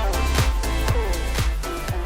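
Background music with a steady beat: an upbeat funky track with a kick drum about twice a second over a bass line.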